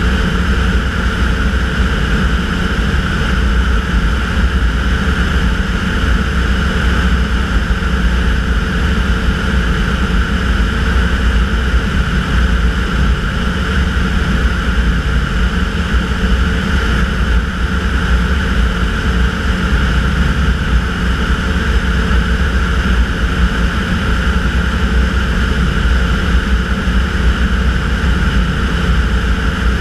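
Tanarg air trike's engine and pusher propeller droning steadily at cruise power, with no change in pitch. A strong low wind rumble on the wing-mounted microphone runs underneath.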